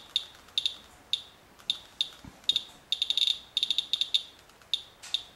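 Radalert Inspector Geiger counter chirping once for each count, at irregular intervals, a few per second with a quick cluster about three seconds in. It is reading radioactivity on a paper-towel wipe taken from a rain-wet vehicle hood, around 0.07 mR/hr, which the operator puts at several times normal background.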